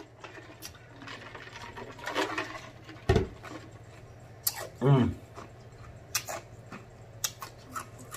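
Mouth sounds: scattered lip smacks and clicks, with a couple of short hummed 'mm' sounds and a thump about three seconds in, over a faint steady low hum.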